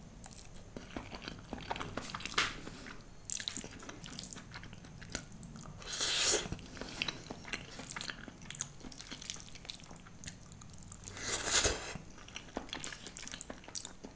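Close-miked chewing and mouth sounds of a person eating buttered instant noodles, with small wet clicks throughout and two louder slurps, about six and eleven and a half seconds in.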